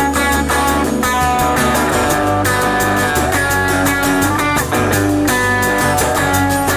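Live rock band playing: driving guitars over a fast, steady drum beat and a low bass line, with no singing.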